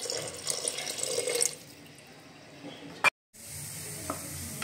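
Water poured in a stream into an aluminium pressure cooker holding lentils and spices, splashing for about a second and a half and then trailing off. A short click comes about three seconds in, followed by a brief dropout of all sound.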